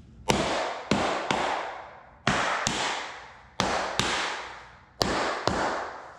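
Rubber mallet knocking on laminate flooring planks, tapping the click-lock joints shut. About nine sharp knocks, mostly in quick pairs, each trailing off over about a second.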